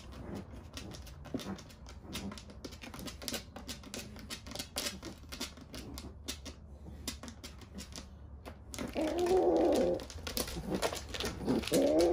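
Light, irregular clicking and tapping, then a cat yowling twice near the end, each call rising and falling in pitch.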